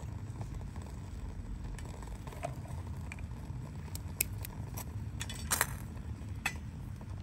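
A small fatwood-and-twig fire crackling in a stainless steel wood-burning backpacking stove: scattered sharp pops, one louder past the middle, over a low steady rumble.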